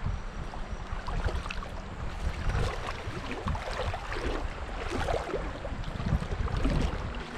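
Wind rumbling on the microphone over moving river water, with splashing as a hooked smallmouth bass fights and jumps clear of the water.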